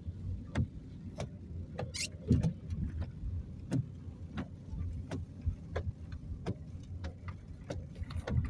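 Car driving slowly on a rough, wet road, heard inside the cabin: a steady low engine and road rumble with a run of regular light clicks, about one every two-thirds of a second, and a brief hiss about two seconds in.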